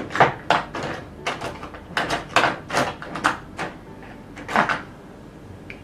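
Makeup tools being handled: about a dozen quick, scratchy strokes at an uneven pace, fading out near the end.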